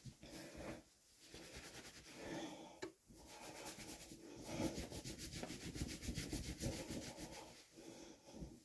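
A towel rubbing wet hair: faint, irregular scrubbing strokes with short pauses.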